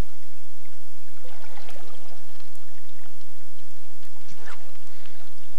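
River water flowing and lapping over a steady hiss, with a few light scattered ticks.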